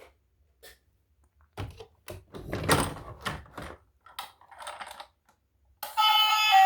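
Irregular clicks, knocks and rustles of objects being handled, likely toy packaging or plastic toys being unboxed, then music with guitar starts near the end.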